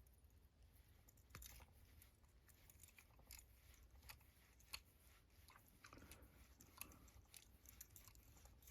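Faint, scattered small metal clicks and scrapes of an Allen key working the screw at the bottom of a laminated Master Lock padlock, loosening it to drop the plate and core.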